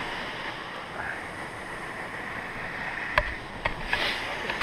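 Steady rushing of the waterfall and creek below, with a few light knocks in the second half.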